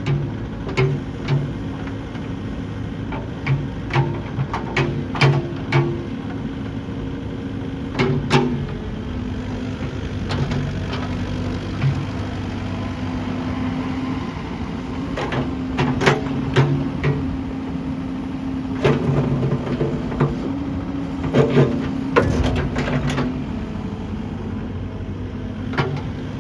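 Caterpillar 308E2 CR excavator's diesel engine running steadily, with sharp clanks and knocks coming at irregular intervals, in clusters about a second, five seconds, eight seconds, sixteen seconds and twenty-two seconds in.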